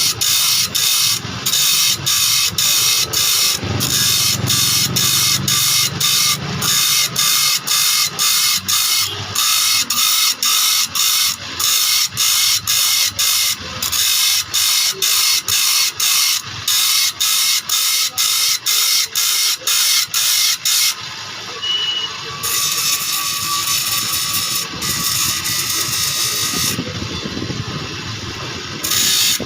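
Rhythmic rasping of a hand file stroking across a saw blade's teeth, about two to three strokes a second, as the teeth are cut smaller. About 21 seconds in, the rhythm gives way to longer, steadier strokes with fewer breaks.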